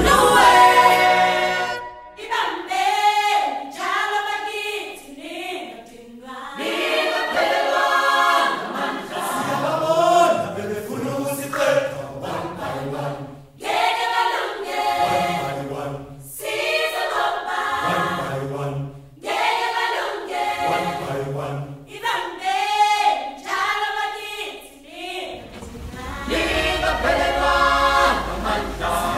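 Background music: a song carried by a choir of singing voices. A low, steady noise comes in near the end.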